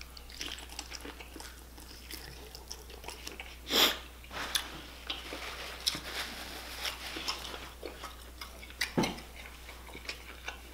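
Close-up mouth sounds of a person chewing and biting seafood boil food, with many small wet clicks and smacks. There is a louder bite about 4 seconds in and another about 9 seconds in.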